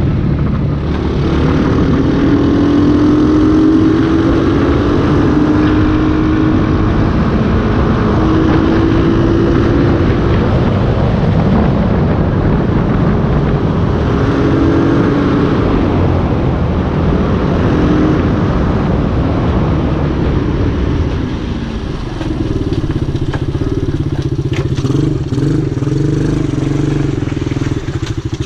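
A KXD Pro Lemon S 125 cc ATV's single-cylinder four-stroke engine, heard from on board while riding. Its pitch rises and falls with the throttle, then eases off to a steadier, lower note about two-thirds of the way through.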